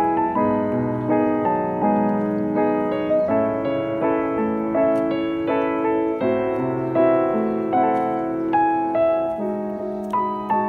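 Background piano music, single notes and chords struck at an even pace of about two a second.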